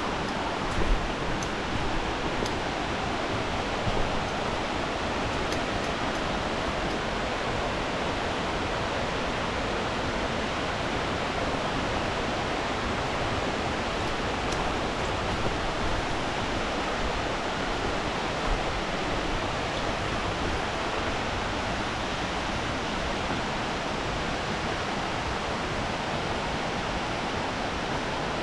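Waterfall: a steady, unbroken rush of falling water, with a few brief knocks about a second in, around four seconds in and past the middle.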